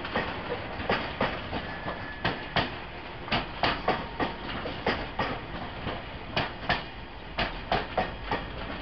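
Wheels of slow-moving track renewal train wagons clacking over joints in the track, in pairs of sharp knocks about a third of a second apart over a steady rolling rumble.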